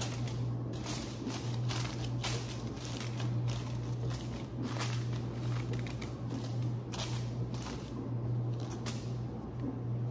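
Cloth kitchen towel rustling as it is draped and tucked over a foil-covered glass baking dish: a run of short, sharp rustles and scrapes, one or two a second, over a steady low hum.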